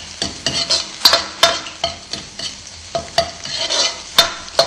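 Metal ladle scraping and knocking in a wok, about two or three strokes a second, over the sizzle of shredded scallion and ginger frying in oil on a low flame to bring out their aroma.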